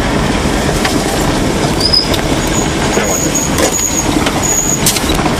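Car driving slowly over a rough dirt road, heard from inside the cabin: steady engine and tyre rumble with a few knocks as it bumps along. Short high chirps sound over it several times in the second half.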